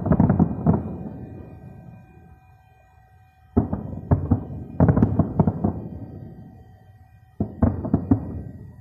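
Distant aerial fireworks shells bursting in volleys of rapid booms, each volley echoing and dying away. One volley comes at the start, another about three and a half seconds in that runs on for about two seconds, and a third shortly before the end.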